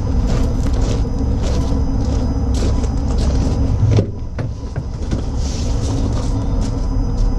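Footsteps crunching on gravel with wind rumbling on the microphone and a steady hum underneath. Just before four seconds in, the van's driver's door latch clicks and the door opens, and the rumble drops.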